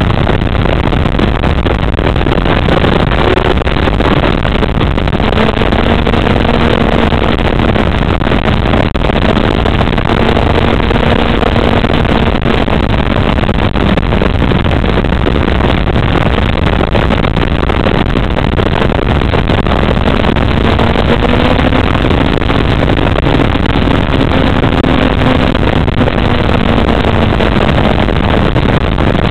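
Sport motorcycle engine heard from its own saddle under a steady rush of wind noise. The engine's pitch climbs and falls a few times as the throttle opens and closes through the bends.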